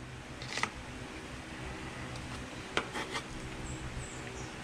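Chef's knife tapping and scraping as diced onion is pushed off a wooden cutting board into a bowl: a few faint clicks, one about half a second in and three in quick succession around 3 seconds, over a low steady hum.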